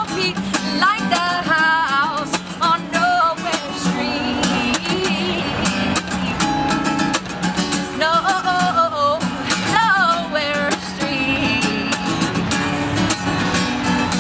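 A woman singing over a strummed steel-string acoustic guitar, an Alvarez played with a capo; the voice bends and slides through the melody over a steady strumming rhythm.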